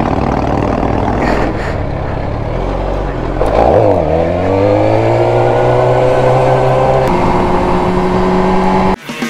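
Suzuki GSX-R sport bike's inline-four engine, heard on the rider's camera, running at low revs while rolling slowly. About four seconds in the revs dip, then climb steadily as the bike pulls away. The engine then runs more steadily, with a brief drop in sound just before the end.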